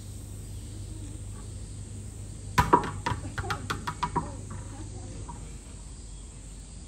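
A quick run of about eight sharp clicks or knocks over a second and a half, starting a little before the middle. They sound over a steady drone of insects.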